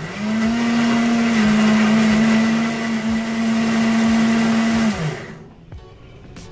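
Electric countertop blender running for about five seconds: the motor comes up to speed at once, holds a steady whine, then is switched off and winds down with a falling pitch.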